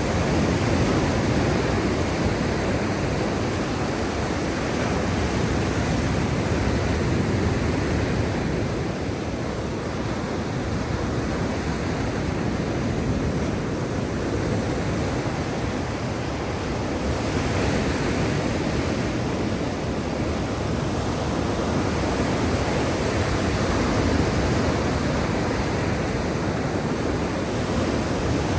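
Sea surf: a continuous rush of waves, swelling and easing slowly every several seconds.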